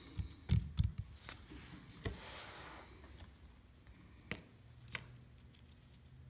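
Scattered light clicks and knocks of small tools and parts being handled, several close together in the first second and a few single ones later.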